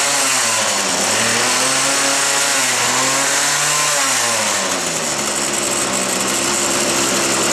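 Two-stroke string trimmer engine running on a freshly rebuilt carburetor. Its speed dips and picks up again, then drops about five seconds in and holds steadier at a lower speed. It runs strongly and keeps going: 'runs like a champ'.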